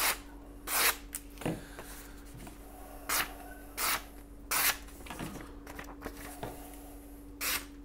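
Freshly sharpened knife blades slicing through a sheet of paper in about half a dozen short, crisp swishes, irregularly spaced. Clean cuts through paper are the test that the edges are properly sharp.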